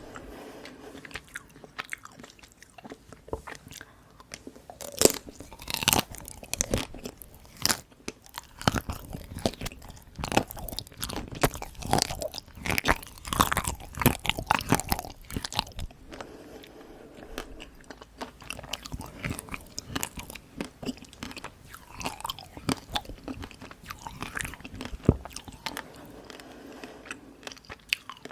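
Close-miked biting and chewing of chocolate-coated ice cream bites: the dark chocolate shell cracks crisply under the teeth in irregular runs of crunches.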